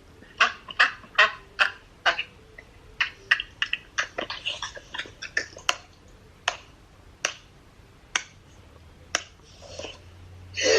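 A run of short, sharp clicks or taps at an uneven pace, several a second at first and then more spread out.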